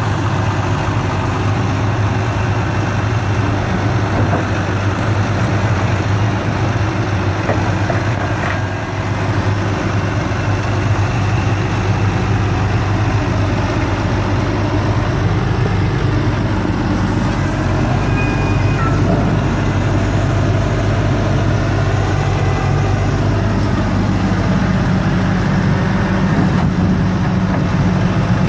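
Grab lorry's diesel engine running steadily, driving the hydraulic crane and grab bucket as it loads soil. The engine note rises a step about two-thirds of the way through, and there is a single knock about 8.5 s in.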